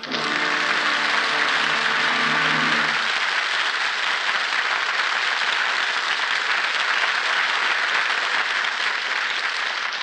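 Audience applause, dense and steady, with the held final chord of an orchestral brass passage dying away in the first three seconds.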